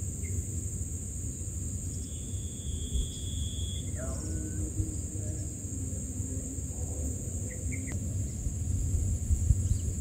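Steady high-pitched insect buzz, cricket-like, over a low rumble of outdoor background noise, with a held whistle-like tone lasting about two seconds near the start and a few faint short chirps.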